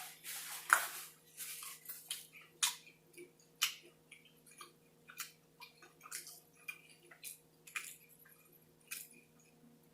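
Close-miked chewing of food, with irregular wet smacks and clicks from the mouth; the loudest comes about a second in. A faint steady hum lies underneath.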